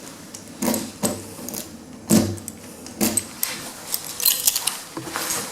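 Irregular clunks and metallic rattles, about eight or nine in all, with a cluster of quick rattles a little past the middle, inside a lift car travelling up between floors.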